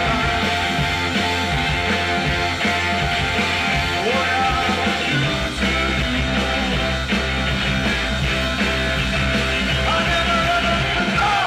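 Live rock band playing loud and steady, with drum kit, electric guitar and keyboards.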